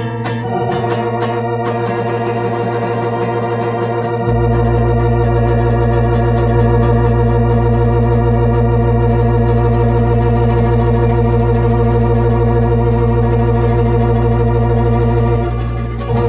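Organ holding one long chord with a wobbling vibrato; a deep bass note joins about four seconds in, and the chord stops near the end.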